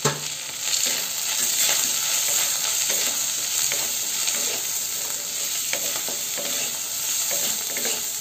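Sliced ivy gourd and onion sizzling in hot oil in a metal kadhai on high heat, with a wooden spatula stirring and scraping against the pan in a run of short scrapes and knocks, one sharp knock at the very start.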